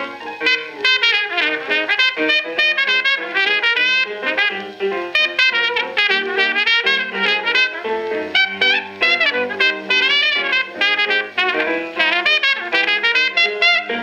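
A 1928 hot-jazz duet of trumpet and piano played from a 78 rpm record. The trumpet plays quick, bending phrases over the piano's chords.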